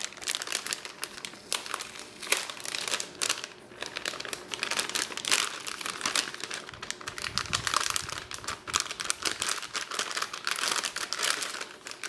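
Plastic packaging around a graphics card crinkling and rustling continuously and irregularly as the card is unwrapped by hand.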